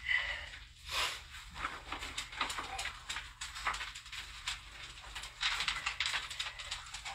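Rustling and light knocks from a person moving about and handling things, with a short high squeak at the very start.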